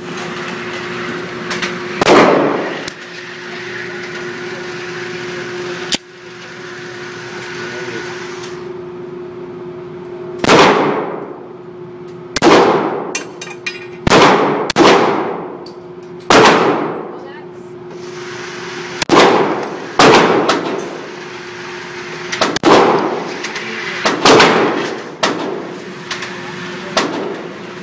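Glock 23 Gen4 .40 S&W pistol fired about a dozen times at uneven intervals, some shots in quick pairs, each a sharp crack with a long echo off the indoor range. A steady hum runs underneath.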